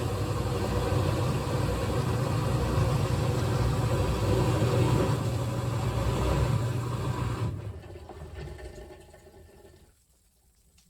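GE top-load washing machine running with its lid open: a steady motor hum that fades away from about three-quarters of the way in, leaving near silence at the end.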